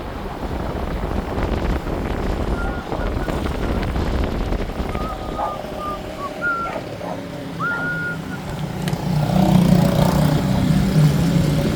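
A car driving along the road, a steady rumble of engine and road noise. A few short high-pitched tones sound about the middle, and a louder low hum rises about nine seconds in.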